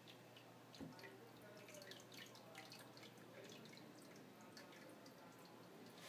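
Faint water in an aquarium dripping and trickling as many small, irregular drips, over a low steady hum.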